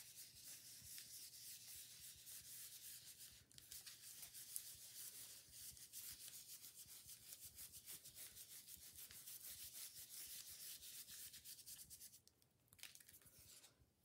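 Faint dry scratching of a round stencil brush worked quickly over a plastic stencil on paper, dabbing and scrubbing paint through the holes in many rapid strokes. It breaks briefly a few seconds in and stops about two seconds before the end.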